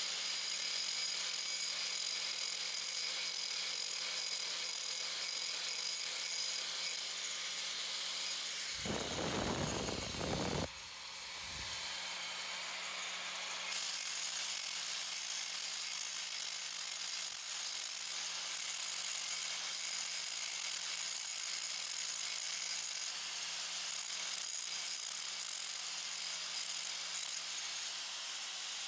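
DeWalt 100 mm angle grinder with a metal grinding wheel running against steel, grinding down a raw weld: a steady high-pitched whine and hiss. There is a short rumble about nine seconds in and a brief drop in level just after.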